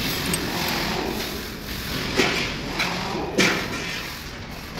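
Steel ring spanner and hex key clinking against a rocker arm's locknut and adjusting screw as they are fitted on for a valve lash adjustment: three sharp metallic clicks about half a second apart, over steady background noise.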